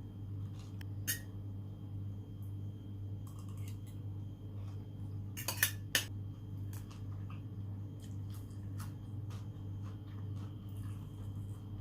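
Scattered light clinks and taps of cutlery against dishes at a meal, with two sharper clinks about halfway through, over a steady low hum.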